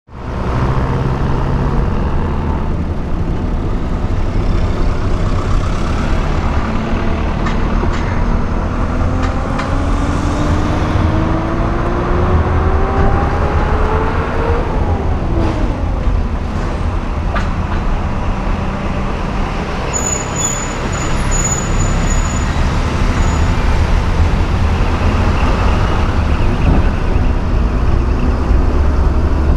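A car driving on a highway, with a steady low rumble of engine and road noise. The engine note rises steadily for several seconds, then falls back sharply about halfway through.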